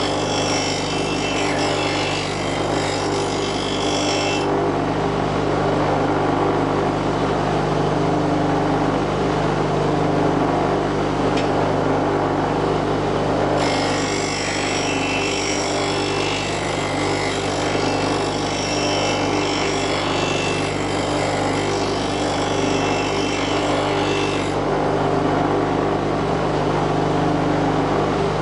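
Bench grinder motor running with a steady hum while a steel blade is ground against the wheel, a hissing grind that lasts until about four seconds in and comes back from about fourteen to about twenty-four seconds in.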